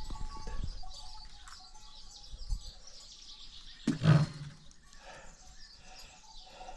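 Small birds chirping over and over, with low handling bumps and one brief loud thump about four seconds in.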